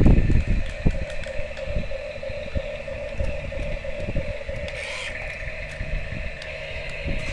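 A small motor humming steadily, with scattered light knocks.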